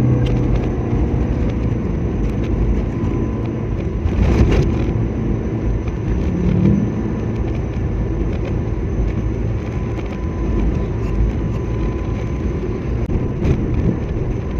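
Car driving along, a steady rumble of engine and road noise, with a brief louder rush of noise about four seconds in.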